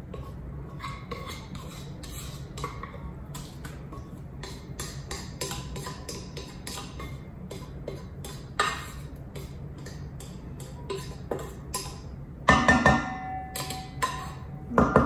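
Wooden spoon scraping and tapping food out of a pan into a stainless steel mixing bowl: a run of small irregular clicks and taps, then a few louder knocks near the end that leave the bowl ringing.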